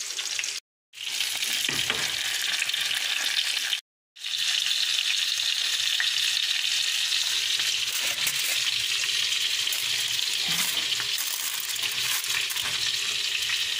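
Salmon fillets frying in melted butter in a grill pan: a steady sizzling hiss that cuts out completely twice, briefly, in the first few seconds.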